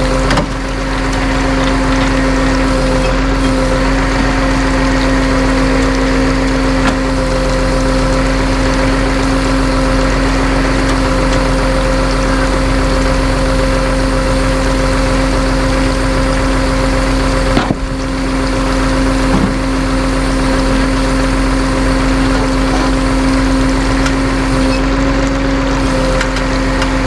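A vehicle engine running steadily with a constant hum, which briefly dips near the middle and then carries on unchanged.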